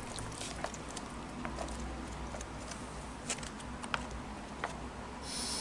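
Foil ration pouch crinkling as cold tuna pasta is squeezed out of it into a plastic container, with small scattered clicks and soft squishes of the food, and a short louder rustle of the pouch near the end.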